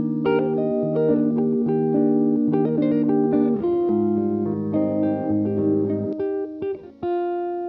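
Background music led by a plucked guitar playing a melody, with bass notes underneath.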